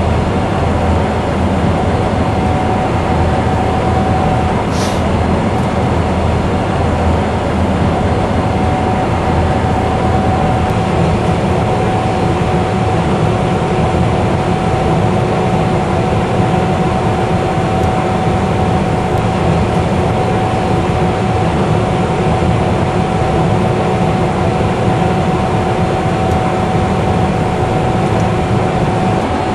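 Gleaner S77 combine harvester running steadily under load while cutting wheat: a constant heavy machine drone with a steady high whine over it.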